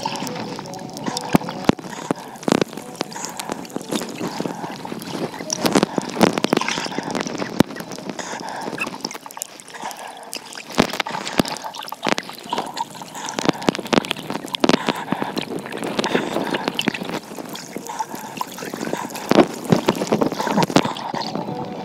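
Water heard through a camera held underwater: gurgling with dense, irregular crackling clicks throughout.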